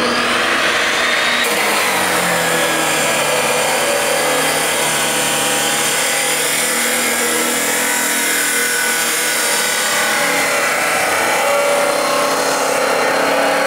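Milwaukee abrasive chop saw at full throttle, its abrasive wheel cutting through steel: a loud motor hum with a grinding hiss that comes in about a second and a half in and holds steady through the cut.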